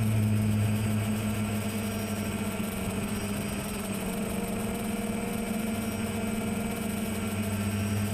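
Quadcopter's electric motors and propellers humming steadily, heard from the camera on the aircraft itself. The lower part of the hum fades about three seconds in and comes back near the end, as the throttle shifts.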